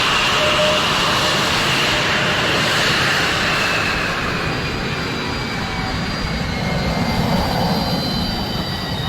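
Jet engine running: a dense rushing noise with a high whine that slowly drops in pitch as the level gradually eases off. Thin, steady high tones join about halfway through.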